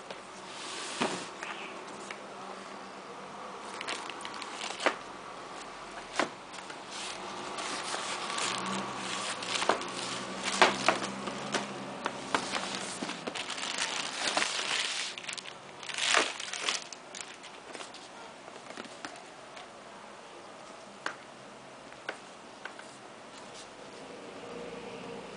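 Packaging being handled while a computer keyboard is unboxed: a thin plastic protective sheet crinkling and rustling, densest through the middle, with scattered sharp clicks and knocks from the box and cables.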